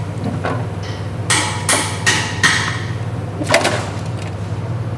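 A series of sharp plastic clicks and knocks, about six, as an electric fuel pump and its retaining ring are handled and worked apart. The loudest comes about three and a half seconds in, over a steady low hum.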